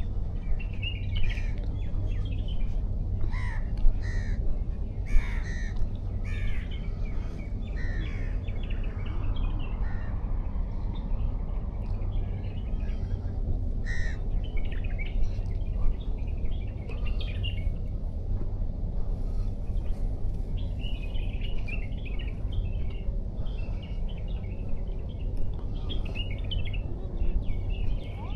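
Birds calling in short repeated calls over a steady low rumble of waves. The calls come in clusters, busiest in the first few seconds and again after about twenty seconds.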